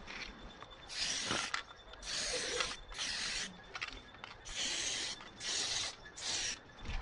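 Aerosol spray paint can hissing in six short bursts of about half a second each, with brief pauses between them.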